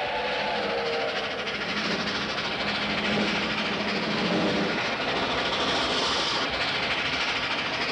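Cartoon sound effects of a vehicle hurtling along a rough road: a fast, steady rattling clatter over a rushing noise.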